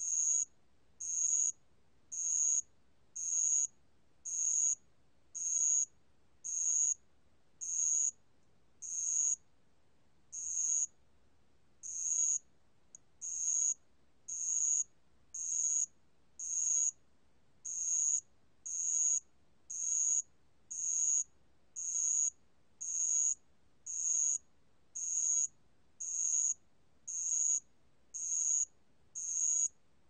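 알락방울벌레 ground cricket singing at 28 °C: a high-pitched trilled chirp about half a second long, repeated roughly once a second.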